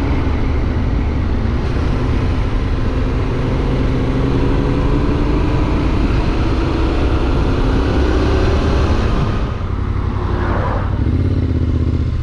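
Yamaha Ténéré 700's parallel-twin engine running under way, its pitch climbing slowly as the bike gathers speed, then dropping about nine seconds in as the revs fall. A heavy low rumble lies underneath.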